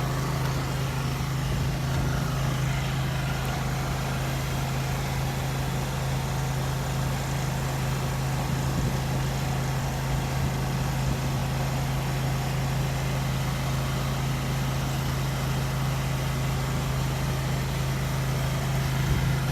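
An engine running steadily at a constant idle, a low even hum that holds unchanged throughout.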